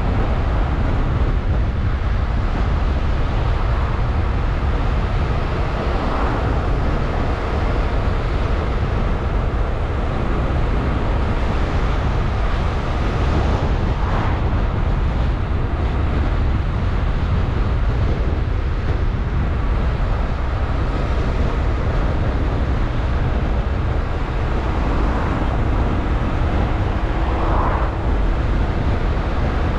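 Car on the move: a steady rumble of engine, tyres and road noise, with a few brief faint swells.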